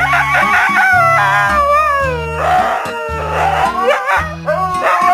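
A dog howling, a run of long wavering calls that mostly slide downward in pitch, with a few rougher yelps among them, over music with a repeating bass line.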